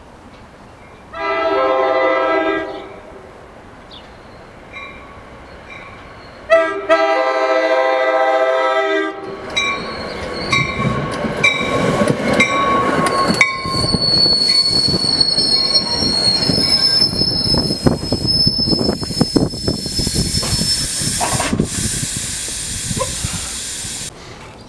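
New Jersey Transit commuter train sounding its horn in two long blasts as it approaches, then passing close by with a loud rumble of wheels on rail and a high, thin wheel squeal lasting several seconds.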